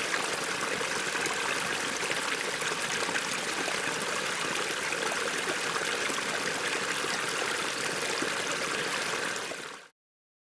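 A forest creek running: a steady rush of flowing water that cuts off suddenly just before the end.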